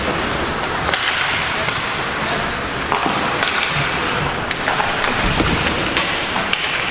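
Ice hockey play: skate blades scraping and carving the ice, with several sharp clacks of sticks and puck.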